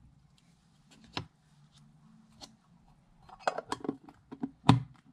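Handling clicks and taps as a Pokémon TCG coin is set down on a playmat and a metal Pokéball tin and foil booster packs are picked up. A quick run of clicks comes past the middle and the sharpest click near the end.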